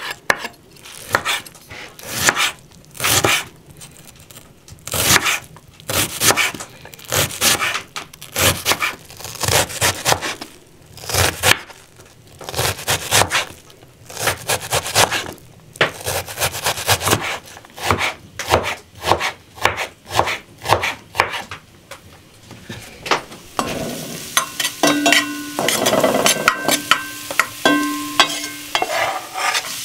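A kitchen knife chopping an onion on a wooden cutting board, with quick, uneven cuts striking the board. Near the end it gives way to a steady sizzle of minced garlic frying in a pan.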